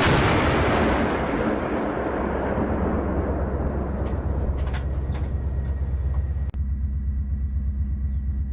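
An artillery gun fires once, its blast echoing and rolling away over about three seconds. A steady low engine rumble runs underneath, with a few light clicks about four to five seconds in.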